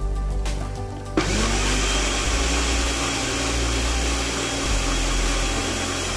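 Sencor personal blender switched on about a second in. The motor spins up with a short rising whine, then runs steadily as it blends a thick blueberry batter.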